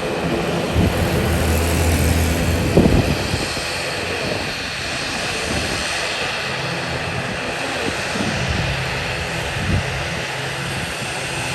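Twin turboprop engines of an ATR 72-600 running, a steady drone with propeller hum.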